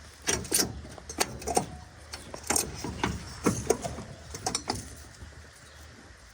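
Hand tools working on old car hardware: a series of irregular sharp clicks and knocks that stops about five seconds in.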